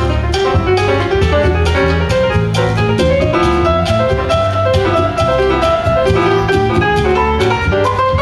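Cuban dance music with a steady, busy percussion beat, a bass line and a melody; a rising run of notes starts near the end.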